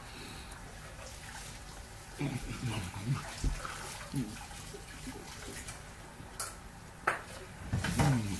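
A man eating fried chicken: chewing and mouth noises, with a few short murmured voice sounds and a couple of sharp clicks.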